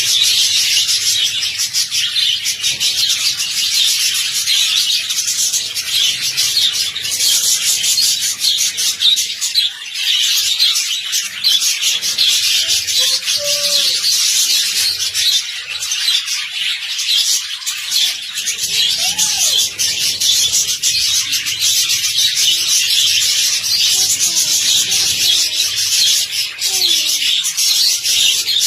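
A large colony of budgerigars chattering all at once: a dense, unbroken wash of high twittering and warbling with no pauses.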